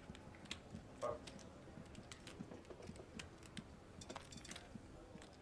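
Faint, irregular light clicks and taps, with a brief murmur about a second in.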